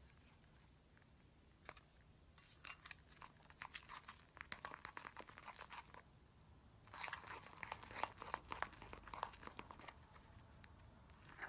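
Foamy slime being stirred with a utensil in a ceramic bowl: a sticky, wet crackling and popping, starting about two seconds in, pausing briefly around six seconds, then coming thicker and faster.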